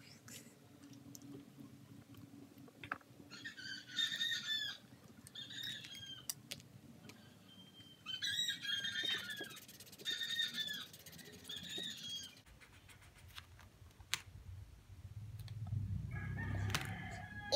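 Birds calling in the background: about five short bursts of a few bent, chirping notes each, with faint clicks in between.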